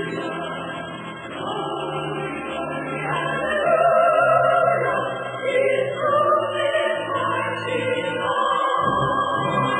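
Choral music: voices sing long held notes that move to a new pitch every second or so.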